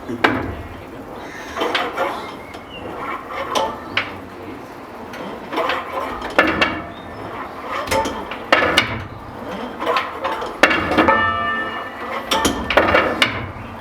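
Church bell being rung up with its clapper tied, so it does not sound: its stay, slider and fittings clunk and knock, metal and wood, as it swings back and forth on handstroke and backstroke, a knock every one to two seconds. A brief ringing tone about eleven seconds in.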